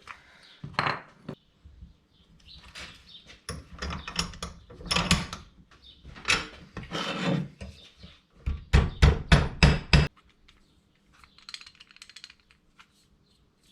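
Hand work on a metal wire float arm being bent and crimped tighter: rubbing and scraping, with a quick run of about six sharp knocks near the two-thirds mark.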